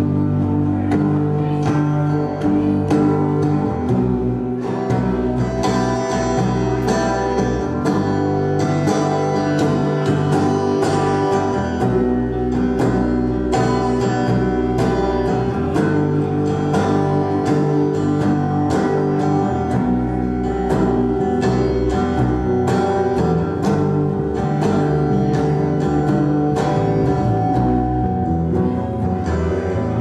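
A band playing live, guitar to the fore, with the music loud and steady throughout.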